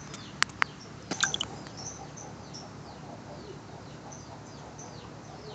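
Faint bird chirps in the background: short, high, falling calls repeating every half second or so. Two sharp clicks come about half a second in.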